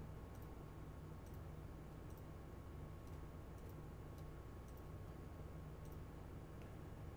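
Faint computer mouse clicks, roughly one every half second to a second at uneven intervals, over a steady low electrical hum.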